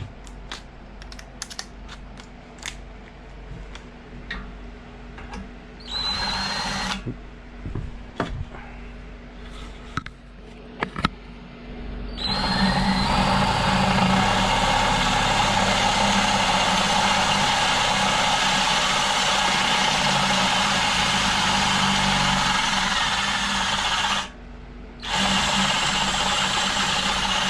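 Cordless drill boring out a hole in a motorcycle wheel rim with a larger bit for a rim lock. Small clicks and rattles of handling come first, then a short run of the drill about six seconds in. A long steady run follows from about twelve seconds in, with a brief stop near the end before it runs again.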